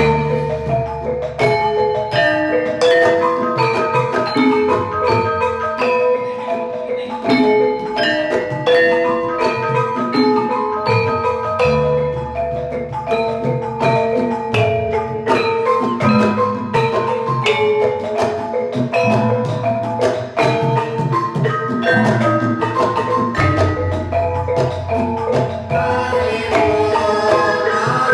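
Campursari music played live by a Javanese gamelan ensemble: struck bronze metallophones ring out in quick runs of notes over a deep bass line.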